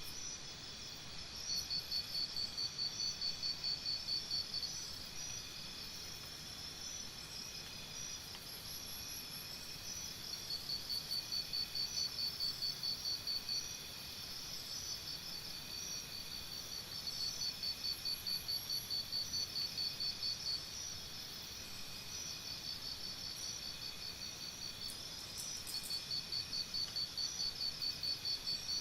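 Forest insect chorus: several steady, shrill insect tones, with a louder pulsing trill of about four pulses a second that comes in bouts of roughly three seconds, returning every seven or eight seconds.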